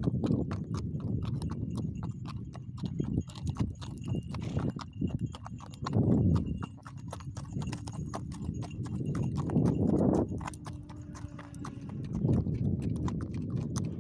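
Horse's hooves clopping steadily on a dirt track, heard close from the saddle, with a low rushing noise that swells up every few seconds.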